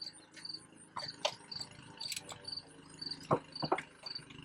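Crickets chirping steadily, a short high chirp about twice a second. Several sharp clicks and knocks cut across it, with a cluster a little past three seconds in.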